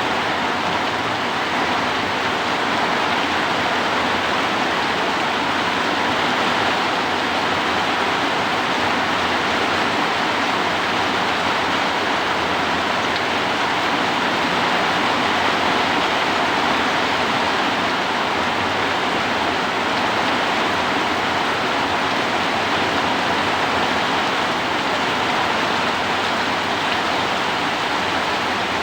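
Heavy rain pouring in strong wind, a steady, even rush of water with no letup.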